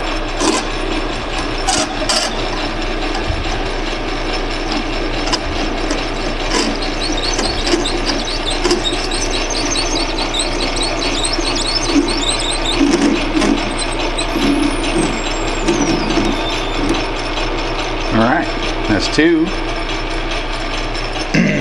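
Atlas metal lathe running with its chuck spinning while a parting tool is fed into brass bar stock to cut off a piece, a steady motor-and-drive hum under the noise of the cut. Short high squeaks come from the cut in the middle, and a thin high whistle falls in pitch about two-thirds of the way through.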